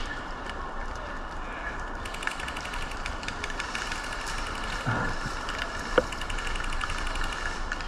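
Distant airsoft guns firing on full auto: a fast, even run of shots, about a dozen or more a second, starting about two seconds in and going on for several seconds over steady outdoor background noise. There is one sharp click about six seconds in.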